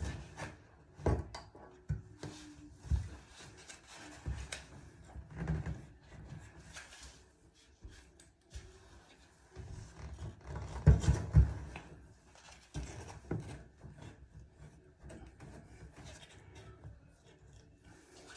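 Scattered light taps, clicks and rubbing from hands and small tools fitting new rubber seat cups and springs into an old-style Delta ball-type shower valve body, with a louder cluster of knocks about eleven seconds in.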